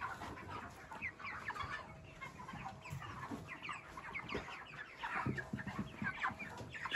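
A flock of market-age broiler chickens calling, with many short, overlapping, falling peeps and clucks and a faint steady hum beneath.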